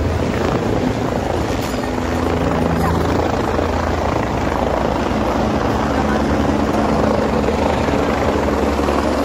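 A helicopter running close by, a steady loud rotor chop and engine drone, with a crowd chattering underneath.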